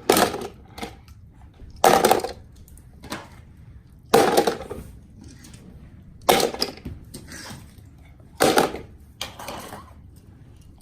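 Hard plastic clattering of toy cars being handled and knocked against a plastic toy parking garage: a sharp clatter about every two seconds, each dying away quickly.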